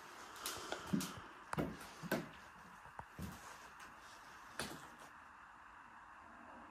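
Scattered knocks and clicks, about nine of them over the first five seconds, some with a dull thud, from someone moving about a cluttered room; then faint room tone.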